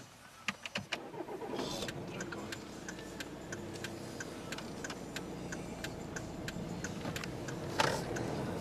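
A Volvo car's engine starting up about a second and a half in and then running steadily at low revs. A turn-signal indicator ticks evenly over the engine, with one louder knock near the end.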